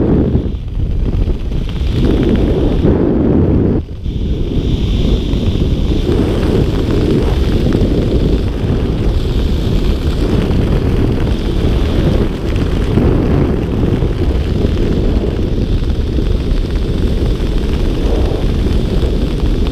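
Wind buffeting the microphone of a helmet camera on a skydiver flying a parachute canopy: a loud, steady rumble with two brief lulls near the start.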